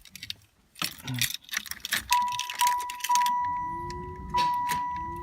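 Keys jangling in the ignition of a 1991 Chevy Caprice wagon. About two seconds in, the dashboard warning chime starts: a steady high tone, broken by short gaps. Under it, a low whine rises in pitch twice as the engine is bumped over without starting, to push fuel through the new filter.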